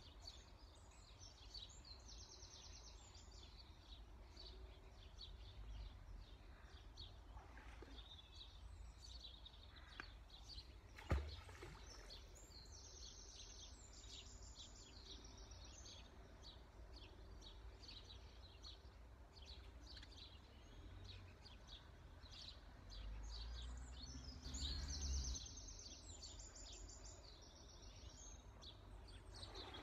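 Faint birdsong: small birds singing repeated high trilling phrases, in three spells, over a low rumble. There is one sharp click about eleven seconds in.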